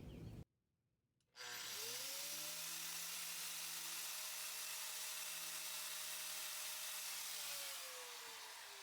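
Electric grinder switched on, spinning up with a rising whine, running steady at full speed for about six seconds, then switched off and winding down with a falling pitch near the end.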